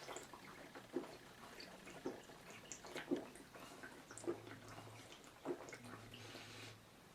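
A person drinking from a 40-ounce malt liquor bottle: faint, soft gulping and swallowing sounds about once a second.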